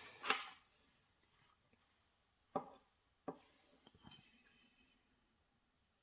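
Four faint, sharp clicks of small metal lock parts and tools being handled while a pin-tumbler lock cylinder is taken apart.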